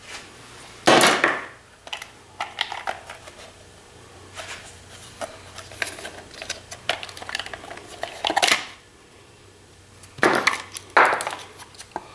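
Hard plastic of a CPAP machine's blower housing clicking, knocking and scraping as it is pried apart by hand to get at the electric motor buried inside. Louder scraping bursts come about a second in, again past the middle, and twice near the end.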